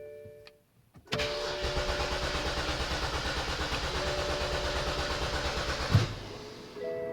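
2007 BMW X5 3.0si's starter cranking its inline-six engine for about five seconds in rapid, even pulses without the engine catching, then stopping with a thump. This is the crank-but-no-start fault that the owners say comes on humid, rainy or cooler days.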